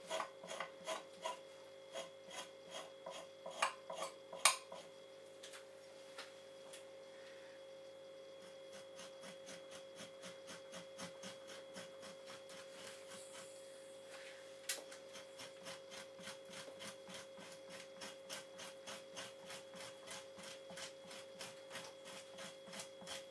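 Dull stainless steel kitchen knife scraping membrane and flesh off the skin side of a fox hide in short repeated strokes, about three a second, more uneven and louder in the first few seconds.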